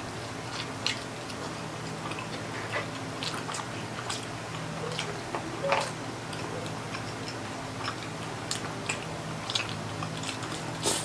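Close-miked chewing and eating: scattered soft clicks and wet mouth smacks, irregular and short, over a steady low hum.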